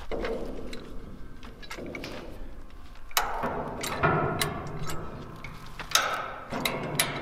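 Farm jack (high-lift jack) being pumped by its long handle: a series of uneven sharp metal clacks from the climbing mechanism, one with each stroke, as it takes the weight of a loaded shipping-container corner.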